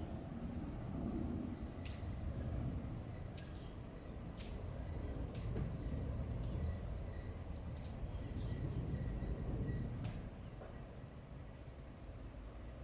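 Small songbirds chirping: many short, high calls scattered throughout, over a steady low rumble.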